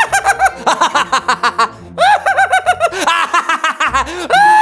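A man laughing in a high-pitched voice, a quick run of short 'ha-ha' syllables with a brief break about two seconds in and a longer held note near the end.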